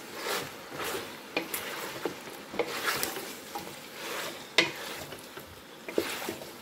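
Wooden spatula stirring pork and onion chunks in a stainless steel pot, with irregular knocks and scrapes against the pot over the light sizzle of frying.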